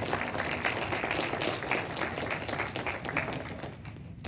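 Audience applauding, fading away shortly before the end.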